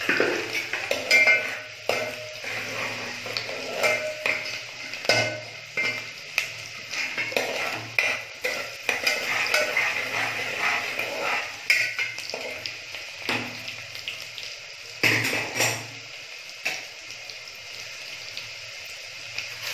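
A metal spoon scraping and clinking against a metal pot while stirring chopped onion and bay leaves frying in oil, over a steady sizzle. The stirring stops near the end, leaving the sizzle.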